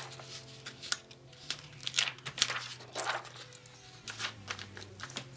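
Sheets of printer paper rustling and crinkling as they are handled and shifted, in irregular short, sharp scratchy strokes.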